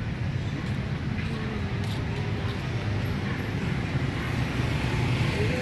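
Steady street traffic noise from motorbikes and cars on a city road, a low, even rumble.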